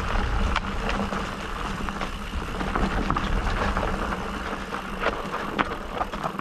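Electric mountain bike rolling down a dirt trail: tyre noise and rattling with scattered sharp clicks, a strong low rumble and a steady low hum.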